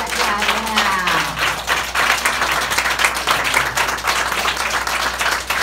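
Audience applauding, a dense run of hand claps, with a voice calling out over it in the first second or so.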